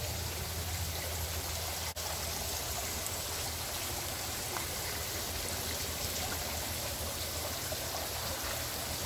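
Water running and trickling steadily into the fish vats, over a steady low hum.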